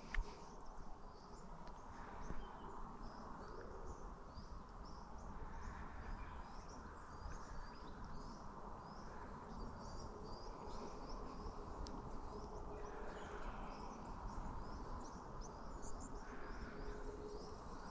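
Faint outdoor ambience of small birds chirping, many short high chirps scattered throughout, over a faint steady background.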